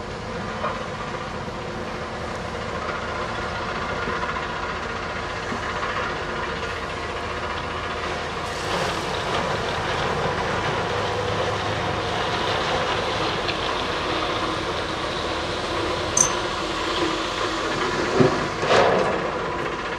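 Scania tipper truck's diesel engine running while the raised tipper body empties its load of stone, a steady rumble with a rushing, rattling noise that grows from about halfway through. A sharp clank comes near the end, followed by a couple of heavier knocks.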